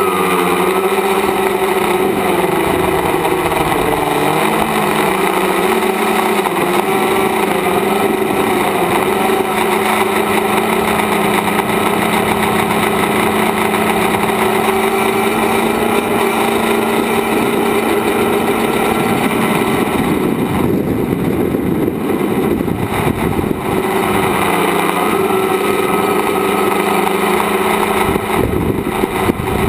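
Tricopter's electric motors and propellers droning, heard through the onboard camera's microphone, the pitch shifting as the throttle changes, with a rougher, noisier stretch about twenty seconds in.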